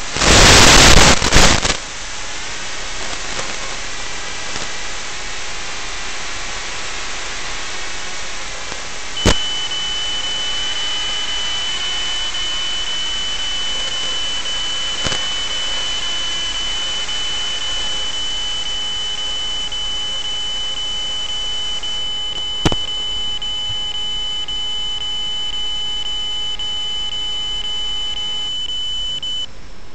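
Steady static hiss on the analog FPV receiver's audio channel, with a burst of loud crackling static in the first two seconds. About nine seconds in, a steady high-pitched tone starts over the hiss and holds, broken by a few sharp clicks.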